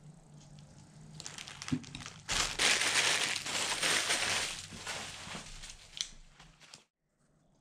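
Clear plastic wrapping crumpled and crinkled in gloved hands. It builds from about a second in, is loudest around the middle, and stops abruptly near the end.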